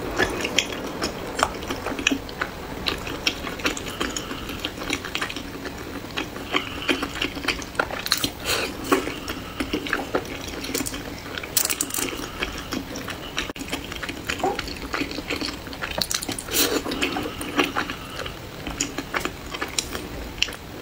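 Close-miked wet chewing of dumplings soaked in chili oil, with many quick mouth clicks and smacks.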